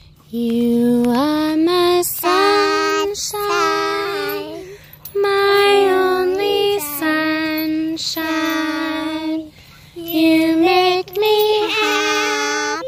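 A toddler and a woman singing a children's song together in long held notes, phrase after phrase with short breaths between.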